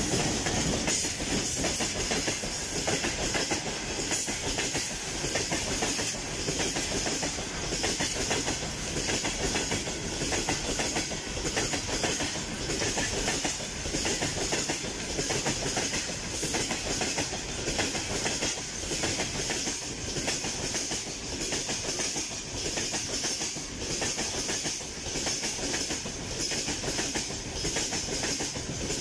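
Freight train of open gondola wagons rolling past, the wheels clattering over rail joints in a steady repeating clickety-clack over a constant rushing hiss.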